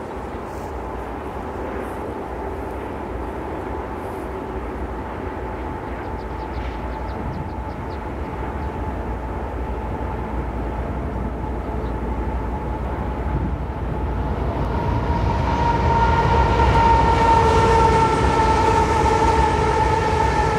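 Union Pacific diesel locomotives heading an intermodal train approach and grow steadily louder. A whine of several steady pitches rises over the rumble in the last few seconds as the engines draw close.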